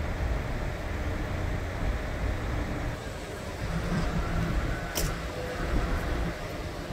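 Street traffic at an intersection: vehicle engines running with a steady low rumble, and a single short click about five seconds in.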